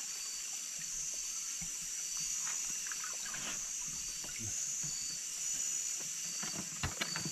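Shallow stream water trickling among rocks under a steady high-pitched chorus of night insects, with light splashing and a few sharp clicks near the end as hands search the pool for shrimp.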